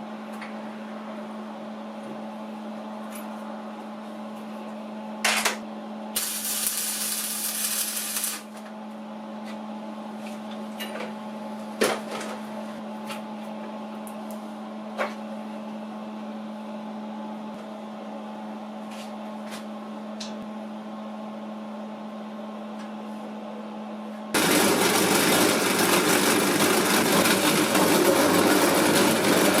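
An electric machine humming steadily, with scattered clicks and knocks, then running much louder from about 24 seconds in.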